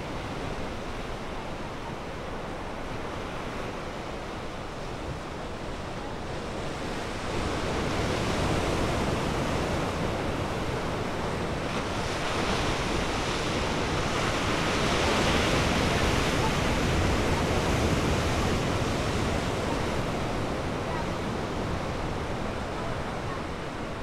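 Ocean waves washing: a steady rush that grows louder about a third of the way in, swells further past the middle, and eases off near the end.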